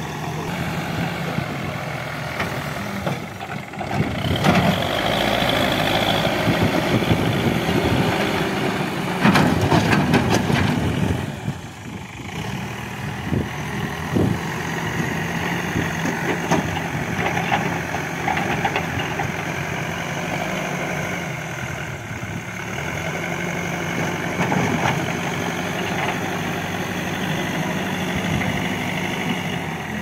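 Escorts backhoe loader's diesel engine working as the front bucket pushes and levels loose soil. It runs steadily, swells louder a few seconds in and again near ten seconds, then drops briefly about twelve seconds in before settling back.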